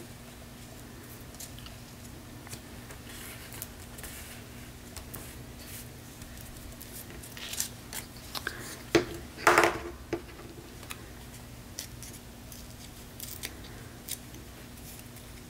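A small piece of printed paper handled and torn by hand: soft paper rustling and crackling, with a louder ripping sound of tearing about nine to ten seconds in.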